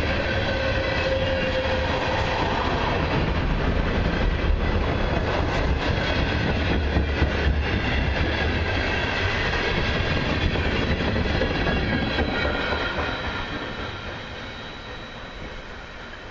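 Freight train tank cars rolling past, steel wheels clacking over rail joints with a faint high wheel squeal. The rumble fades away over the last few seconds as the end of the train passes.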